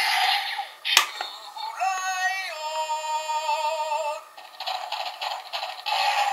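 Zyuoh Changer toy phone: a sharp click as its cube face is turned, then its small speaker plays a synthesized sung jingle with a held, wavering note, followed by more electronic sound from the toy.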